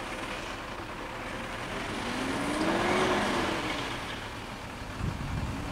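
Road vehicle passing by, its engine and tyre noise swelling to a peak about three seconds in and then fading, with the engine pitch rising and falling over the pass. A few low thumps near the end.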